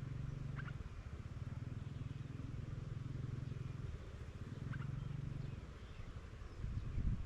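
Two short high bird chirps, about half a second in and again near five seconds, over a low steady rumble.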